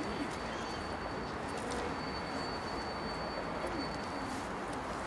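Steady outdoor background noise with a bird cooing faintly a couple of times, low and curved in pitch, over a thin high whine that stops near the end.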